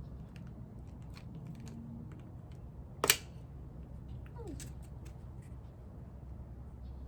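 Small plastic clicks from handling a wax melt clamshell, with one sharp snap about three seconds in as it is pried open, and a short falling squeak soon after.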